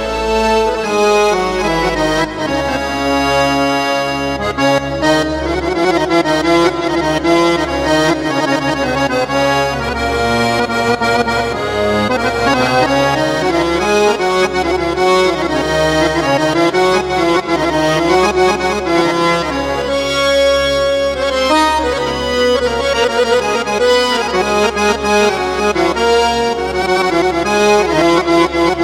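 Sampled Arabic accordion voice played on a Yamaha PSR-A5000 arranger keyboard, a continuous melody of moving notes.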